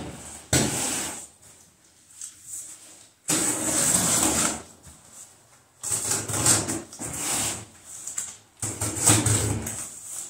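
Packing tape on a cardboard box being cut with a knife and pulled loose, in four scraping, tearing strokes of about a second each, with the cardboard rustling.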